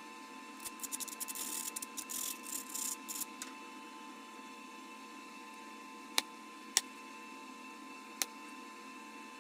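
Bottle glass being flintknapped: a few seconds of rapid scratchy crackling, then three sharp separate clicks of glass on the knapping tool, over a faint steady hum.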